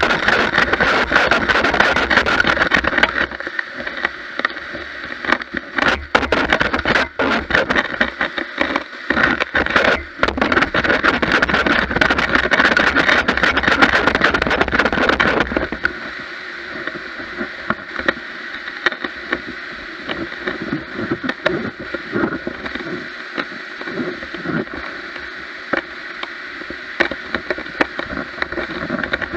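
Gutter vacuum sucking moss and debris out of a roof gutter through a pole-mounted nozzle: a loud, steady rush with a high whistling tone and a crackling clatter of debris. About halfway through it drops to a quieter, smoother rush.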